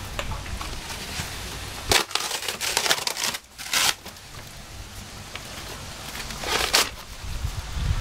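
Cardboard being torn and crushed by hand, in several short ripping bursts with pauses between them.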